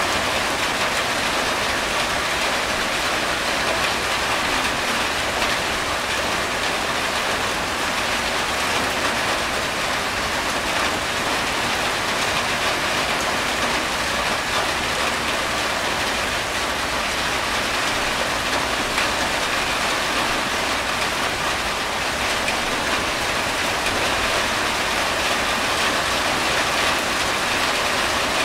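Steady rain drumming on a corrugated tin roof, with water running off the roof edge in streams: an even, unbroken hiss of drops that neither builds nor dies away.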